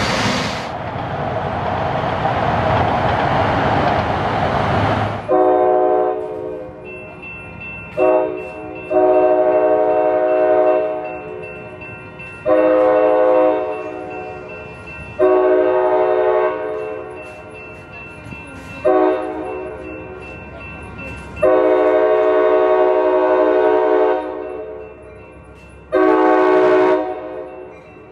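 Amtrak locomotive air horn sounding a chord in a series of about eight blasts, short and long, beginning about five seconds in. Before that comes a steady road noise from a passing bus.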